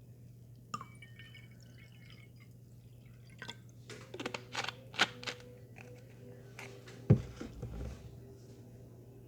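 A drink being mixed: liquid poured into a glass, with a series of clicks and taps of bottle and glass and one louder knock about seven seconds in.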